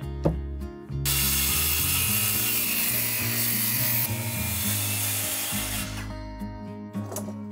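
A handheld power tool working wood, starting about a second in and stopping about six seconds in, over background music.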